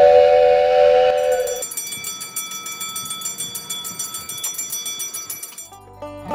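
A train whistle sounds a steady chord of several tones, cut off abruptly after about a second and a half. Then a railroad crossing bell rings rapidly and steadily, and banjo music starts near the end.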